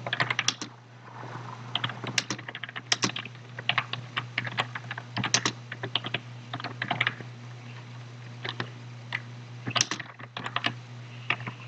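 Typing on a computer keyboard: irregular runs of key clicks broken by short pauses, over a steady low hum.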